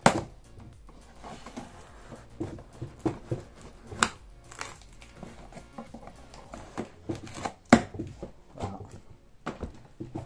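Cardboard printer box being handled and opened by hand: irregular knocks, taps and scrapes on the cardboard, the sharpest right at the start, about four seconds in and near eight seconds in.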